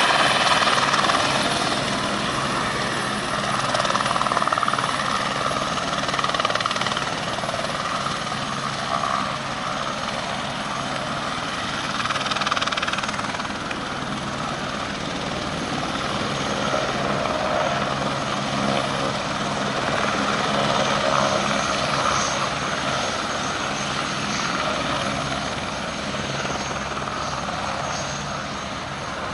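Eurocopter AS350 B2 Esquilo helicopter hovering low and settling toward touchdown, its Turbomeca Arriel turbine and main rotor running steadily.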